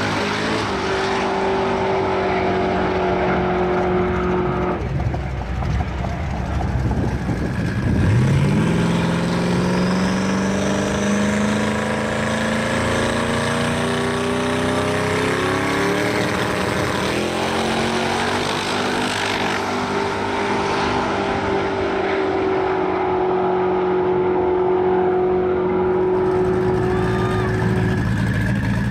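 Twin-turbocharged Ford Coyote V8 in a drag-race Mustang. Its engine note is held steady for several seconds, climbs in pitch in a series of rising revs through the middle, holds steady again for a long stretch, and starts rising once more near the end.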